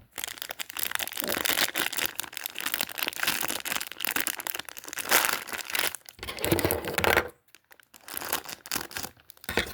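Packaging crinkling and rustling as a squishy fidget toy is handled and unwrapped, with a short pause about seven seconds in before the crinkling starts again.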